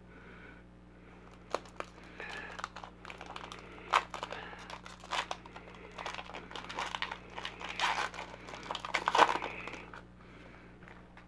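Foil wrapper of a football trading-card pack being torn open and crinkled by hand: a run of sharp crackles and rustles starting about a second and a half in, loudest around four and nine seconds in.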